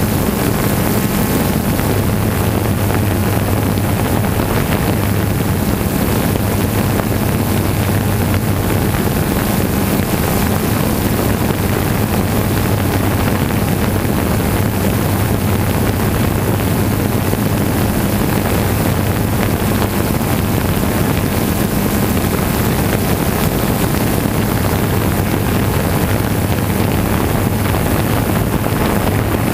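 Steady, unbroken hum of a multirotor camera drone's propellers, with wind buffeting the microphone.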